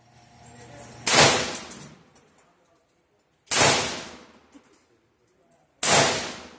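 Three loud gunshots about two and a half seconds apart, each a sharp crack with a short ringing tail.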